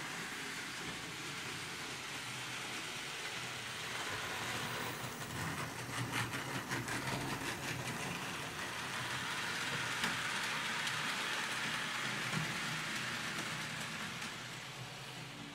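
Märklin model trains running on the layout: a steady rolling rattle of wheels on track over a low motor hum, with a run of quick clicks about five seconds in.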